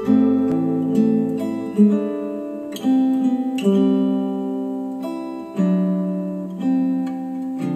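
Acoustic guitar music played back through hi-fi bookshelf speakers: plucked notes and chords, a new one about every second, each ringing out and fading before the next.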